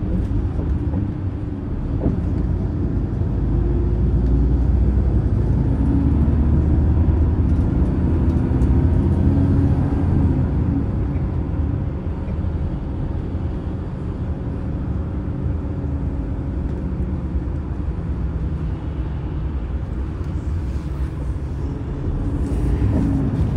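Daewoo Bus FX116 coach running at road speed, heard from inside the passenger cabin: a steady low engine rumble. It grows louder from about four seconds in, then eases back after about twelve seconds.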